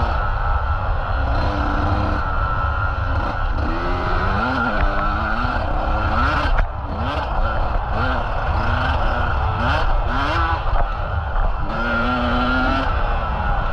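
Motocross bike engine revving up and down about once a second, with steadier running at the start and near the end, over a heavy low rumble.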